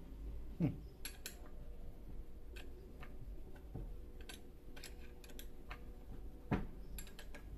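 Scattered light metal clicks and taps as an open-end spanner works the clutch of a two-stroke chainsaw loose, with one louder knock near the end.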